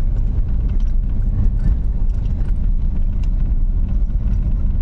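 A car driving on an unpaved gravel road: a steady low rumble of tyres and engine, with scattered small clicks of loose stones.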